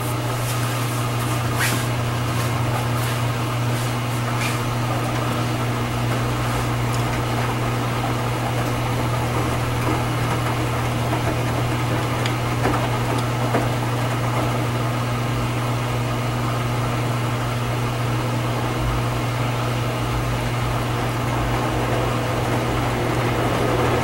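Electrolux LFE10 front-load washing machine filling with water for its final rinse: a steady low hum with water running in, at an even level throughout.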